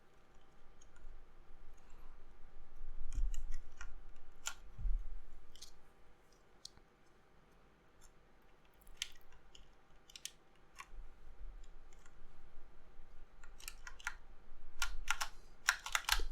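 Plastic keycaps clicking as they are handled and pressed onto a mechanical keyboard's switches: scattered sharp clicks in small clusters, with a couple of low bumps from the keyboard being handled.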